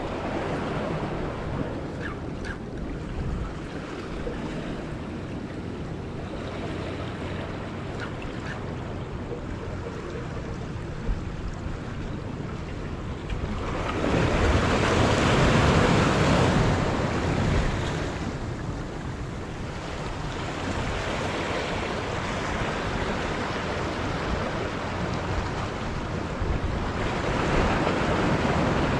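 Sea waves washing against a rocky shore, a steady rushing wash that swells louder for a few seconds about halfway through and again near the end, with wind on the microphone.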